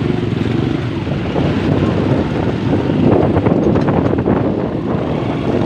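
Wind buffeting the microphone on a moving motorcycle, with engine and street traffic noise beneath.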